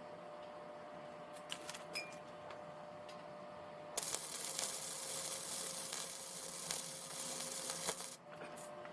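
Welding arc crackling and sizzling on steel for about four seconds, starting abruptly about four seconds in and cutting off sharply, after a few light clicks.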